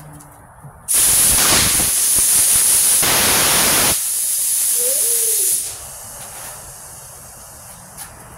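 A loud blast of compressed air hisses into an off-road tire on a tire changer while its bead is being seated. The air starts sharply about a second in, eases slightly about four seconds in, and stops near six seconds, with a short squeak just before it stops.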